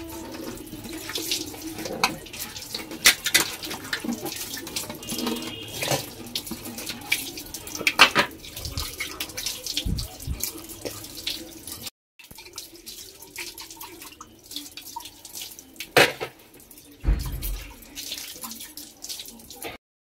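Cups and glasses being washed by hand in a sink: water running and splashing, with occasional sharp clinks of crockery, and the sound breaking off abruptly about twelve seconds in.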